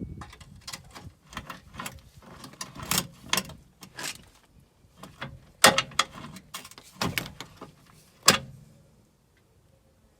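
Irregular metallic clinks and knocks of hand tools and car parts being handled during suspension work. The sharpest knocks come a little over halfway through and again near the end, followed by a short quiet spell.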